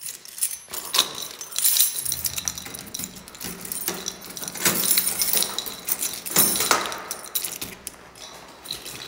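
A bunch of metal keys jangling and clinking as they are handled, in repeated metallic chinks that come and go.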